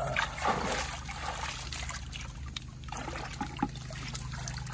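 Muddy water splashing and trickling as a hand and gold pan stir and scoop it, loudest in the first second, over the steady low hum of a small engine running.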